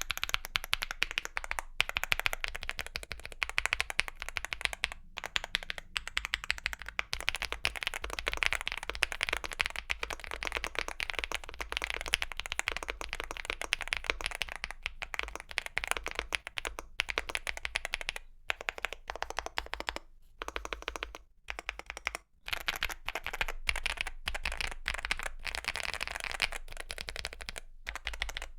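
Fast continuous typing on a mechanical keyboard with Gateron Quinn tactile switches and MDA-profile PBT keycaps: a dense run of deep, thocky keystrokes, with a few short pauses.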